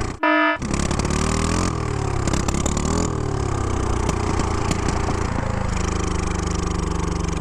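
Honda Ruckus scooter's swapped GY6 150cc single-cylinder engine running unevenly, its speed rising and falling, as it struggles with a faulty slide carburettor that the owner says needs new parts. A brief loud tone sounds right at the start.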